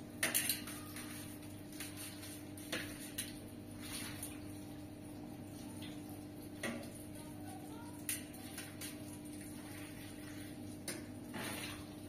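Scattered light knocks and clinks, a second or more apart and the loudest just after the start, over a faint steady hum.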